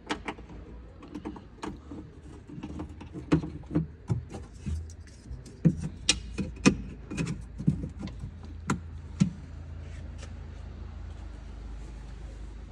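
Irregular sharp clicks and knocks of hands handling a car door lock mechanism and its cables while it is being fitted into the door, about twenty in all, stopping about three quarters of the way through. A low steady rumble runs underneath.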